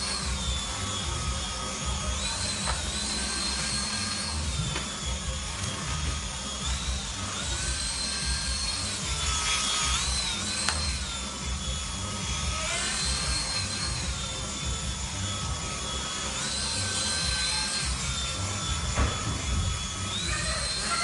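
Small electric propeller motor of a toy flying Minion whining, its pitch rising and falling repeatedly as the toy climbs and dips in hover.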